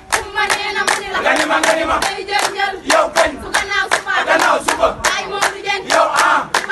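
Several voices chanting or singing together over a fast, even percussive beat.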